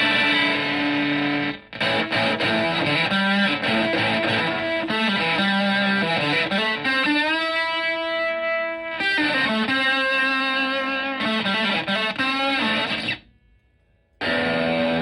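Fuzzed electric guitar: a Stratocaster through a Zonk Machine fuzz pedal into a Fender Twin Reverb-style amp, playing distorted riffs. A long held note sustains about halfway through. The playing cuts out briefly near the end, then comes back in.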